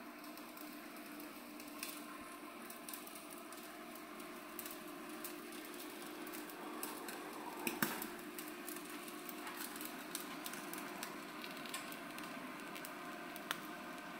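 Steak sizzling under the infrared top burner of a Klarstein Steakreaktor grill running at over 800 °C, with scattered sharp pops and crackles of spitting fat. About eight seconds in comes a short metal clatter as the grill rack is hooked and pulled out with its lifter handle.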